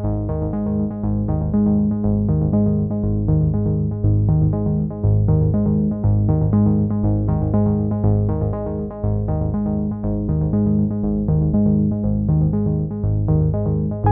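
Background music: synthesizer and keyboard playing a steady, evenly repeating pattern over a strong bass.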